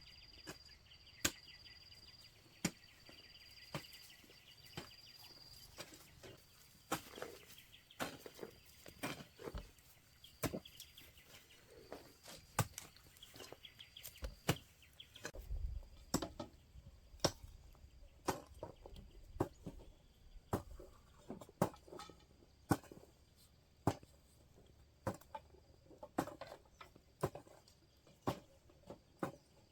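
Repeated sharp chopping knocks, irregular at about one a second and coming faster in the second half, over insects chirping steadily at a high pitch that fades about halfway through.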